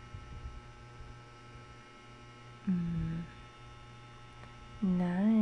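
Steady low electrical mains hum with a high whine. About halfway through, a short flat-pitched hum from a voice breaks in, and a person's voice starts near the end.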